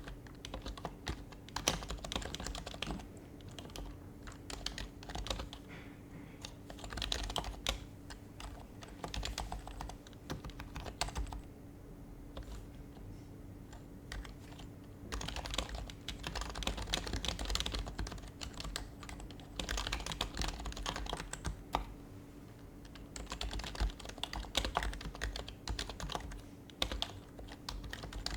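Typing on an HHKB Professional HYBRID Type-S, its silenced Topre keys giving soft, muted clacks. The typing comes in spells of fast keystrokes with short pauses, over a faint steady hum.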